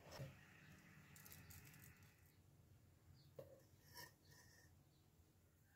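Near silence, with a few faint clicks of a metal spoon against a saucepan of melted chocolate.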